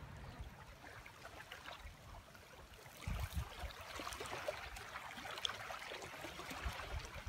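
Faint outdoor noise. About three seconds in, small waves begin lapping at a shallow shore, a busy crackling wash of water with low rumbles of wind buffeting the microphone.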